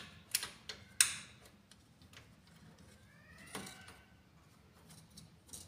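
Small screw and metal fuser bracket being handled by fingers inside a laser printer while the screw is fitted. It gives a few sharp clicks and taps, the loudest about a second in.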